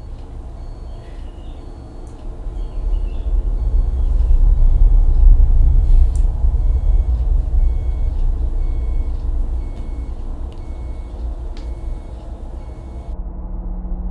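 A deep low rumble that swells to its loudest about four to six seconds in and then eases off, with a faint high beep repeating about once a second over it; the beeping stops abruptly near the end.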